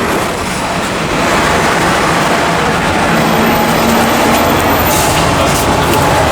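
A subway train running, giving a loud steady noise with a faint hum joining in around the middle.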